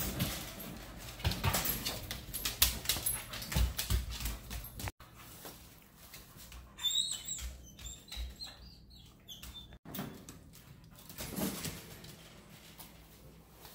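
Dogs whining in high-pitched, wavering whimpers, mixed with repeated knocks and rattles from the wire pet gate that a dog jumps up against.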